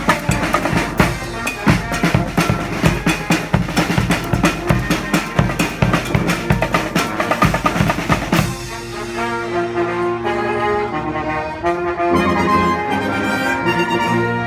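Marching band playing: horns over a busy, steady drum beat, then about eight seconds in the drums drop out and the horns hold long sustained notes.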